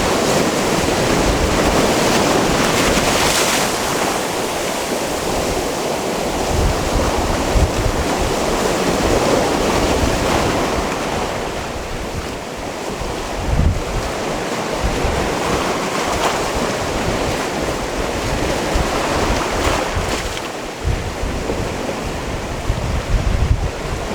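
Sea waves washing and surging against a rocky shore, swelling and easing in a continuous rush, with gusts of wind buffeting the microphone in low rumbles.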